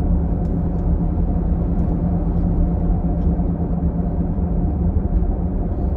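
Car running, heard from inside the cabin: a steady low drone with a constant hum.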